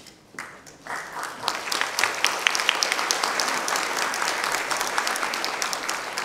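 Audience applauding: many hands clapping, starting about a second in and holding steady.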